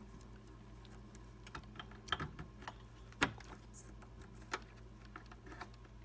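Faint, scattered small clicks and taps of a plastic SATA cable connector being handled and plugged in at the circuit board, with one sharper click about three seconds in.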